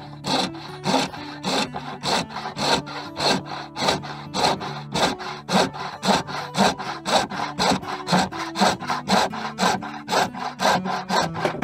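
Fine-toothed brass-backed hand saw cutting through a small piece of dark hardwood with steady back-and-forth strokes, about two a second.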